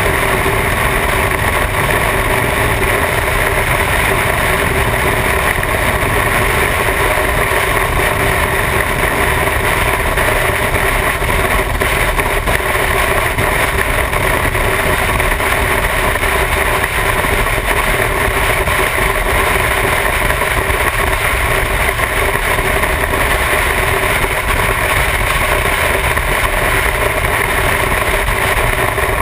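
Motorcycle riding at steady cruising speed: the engine's even drone under a constant rush of wind on the microphone, with no change in speed.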